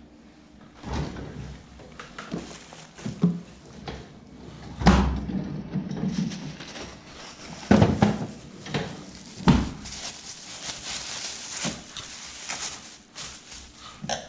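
Stainless-steel under-counter fridge drawer opened and shut amid handling of packaged food: a string of knocks and thumps as items and a glass jar are lifted out and set down on a steel worktop. Plastic bags and cling film rustle, mostly in the latter half.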